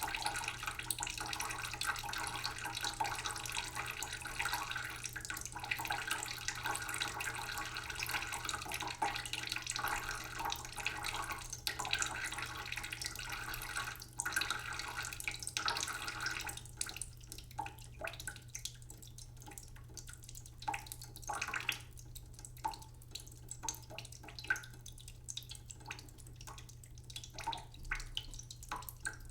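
Tap water running steadily into a cooking pot in a sink; a little past halfway the flow stops and only scattered drips and small splashes into the pot are left.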